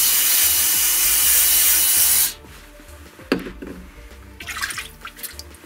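Aerosol cleaner can spraying through its straw nozzle to flush a diesel injector nozzle: a steady hiss that cuts off sharply about two seconds in. A single knock follows about a second later, then brief rustling.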